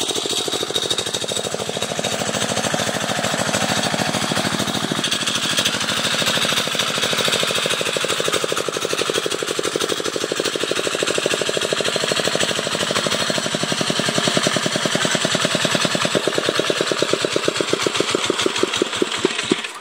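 Single-cylinder diesel engine of a homemade công nông farm tractor running with a rapid, even knocking beat. Near the end the beat slows and the engine stops.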